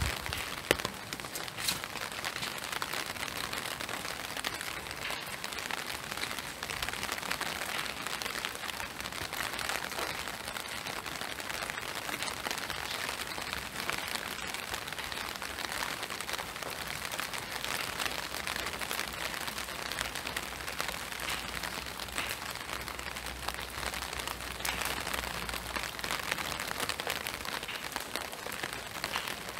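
Spring rain falling steadily: an even hiss with scattered ticks of single drops.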